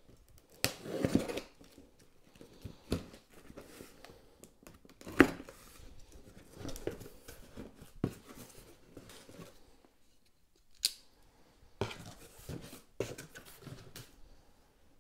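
Cardboard box and packaging being opened and handled: irregular rustling scrapes, clicks and knocks, with a loud sharp knock about five seconds in.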